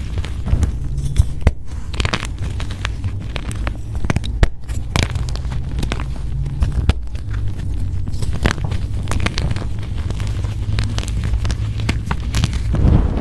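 Blocks of gym chalk being crushed and crumbled: a dense, irregular run of crisp crackling crunches over a low steady rumble.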